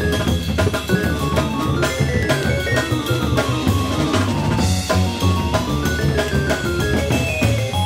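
Jazz-rock band playing a busy passage: drum kit with a cymbal crash about five seconds in, a stepping bass line and synthesizer keyboard.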